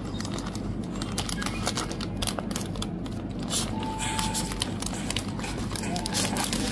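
Packaging being handled: crinkling and quick tapping clicks over a steady low hum.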